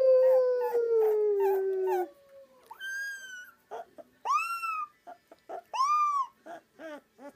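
A Rottweiler puppy howling: three short, high howls, each rising and falling, a bit over a second apart. They follow a boy's long, slowly falling howl at the start that sets the puppy off.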